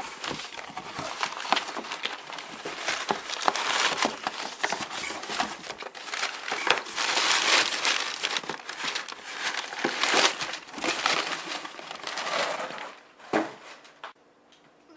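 Camera box packaging being unpacked by hand: continuous crinkling and rustling with many sharp little clicks and snaps, dying away near the end.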